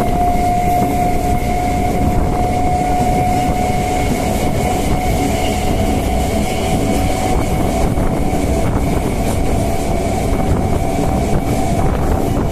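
Electric multiple unit suburban train running at full speed, heard from its open doorway: a loud steady rumble of wheels on rails under a steady high whine from the electric traction motors, with a few faint clicks from the track.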